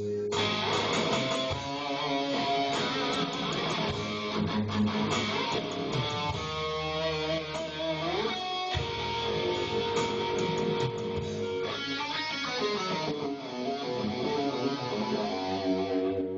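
A band playing an instrumental passage led by electric guitar over a bass line, with a note bent upward about eight seconds in.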